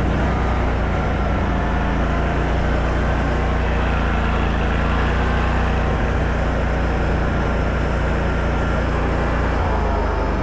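Small engine of a stand-up mini skid steer running steadily at constant speed, with a faint higher whine above it.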